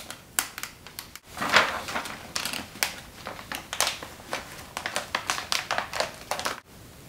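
Packing tape crinkling and tapping as it is handled and pressed onto a cardboard box, a run of irregular small crackles and clicks.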